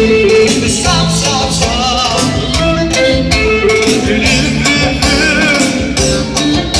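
Live band dance music: a clarinet playing a wavering, ornamented melody over keyboard accompaniment, with a steady beat.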